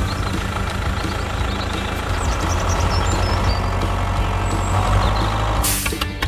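Tractor engine running steadily with a low rumble, then a short loud hiss near the end.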